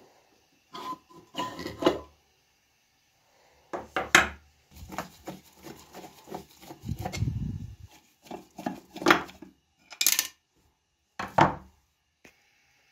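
Screwdriver, screws and cradle clinking and scraping against the painted sheet-metal housing of a 1920s Siemens crank telephone as the cradle's mounting screws are undone. A run of sharp metallic clicks and knocks, some ringing briefly, with a stretch of low scraping around the middle.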